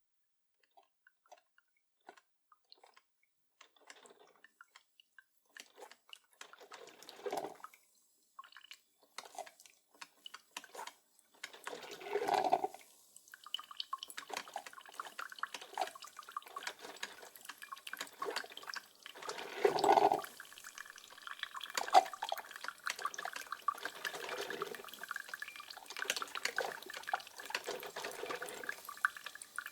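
Coffee machine brewing: water dripping and gurgling, sparse at first, then building into a continuous sputtering gurgle, with louder surges about seven, twelve and twenty seconds in.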